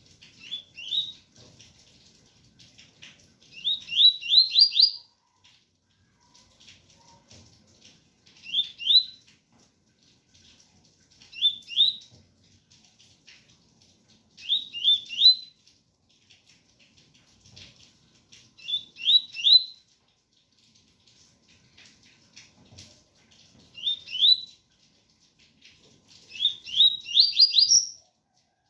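Double-collared seedeater (coleiro) singing the pure tui-tui song: short phrases of two to five quick rising notes, repeated about every three seconds, over faint rain.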